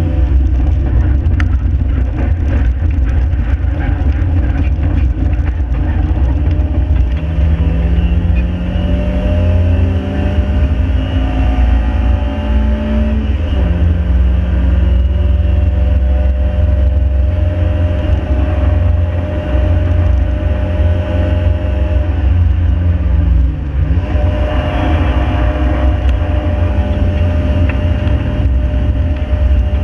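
Ford Fiesta's stock 1.7 Puma four-cylinder engine pulling hard, with a heavy low rumble of road and wind noise. The engine note climbs slowly and drops sharply at an upshift about halfway through, then dips briefly and comes back up a few seconds later.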